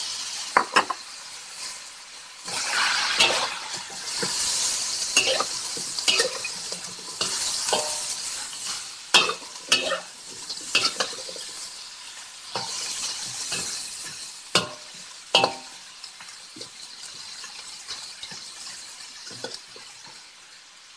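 Duck pieces and radish chunks sizzling in a hot wok, stir-fried with a metal spatula that scrapes and clacks sharply against the wok again and again. The sizzling fades over the last few seconds.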